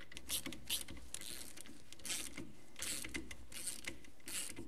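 Hand ratchet clicking in repeated short bursts as it runs in the bolts of a rear axle bearing cover.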